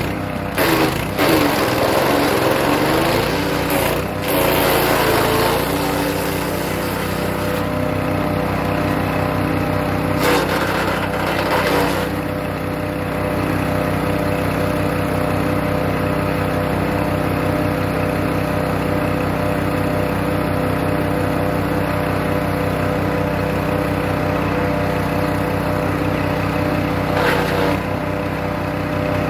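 Hecht 6208 wood chipper's petrol engine running steadily while birch branches are fed in and shredded, a dense rough crunching for the first several seconds. Shorter bursts of chipping come around ten to twelve seconds in and again near the end, with the engine running on alone in between.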